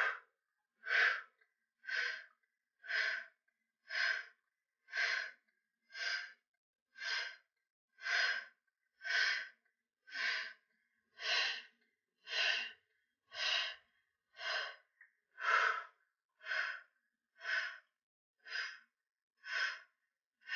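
A woman's sharp, breathy exhales, one about every second, keeping time with the pulses of a standing kickback exercise.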